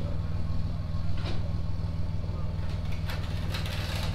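Truck engine idling steadily with a low hum while it slowly backs a trailer, with a few brief rattles on top.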